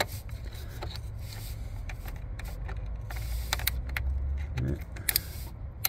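Scattered light clicks and scrapes of a screwdriver levering a rubber vacuum hose and its clamp onto the boost solenoid's plastic fitting, over a low steady rumble.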